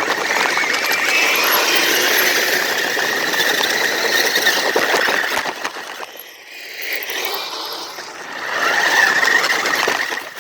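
Electric drive motor and gearbox of an RC vehicle whining hard under load, a steady high whine over gear and drivetrain noise. It eases off about six seconds in and builds up again near the end.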